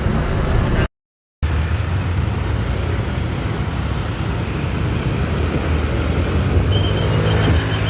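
Bus engine running amid road traffic noise, broken by a half-second dropout to silence about a second in; faint, broken high tones near the end.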